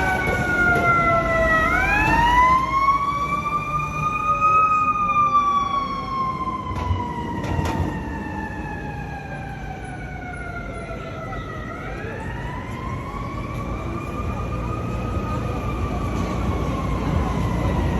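Emergency vehicle siren sounding a slow wail: the pitch falls, climbs quickly, then slides slowly down over several seconds, twice. Steady street traffic runs underneath.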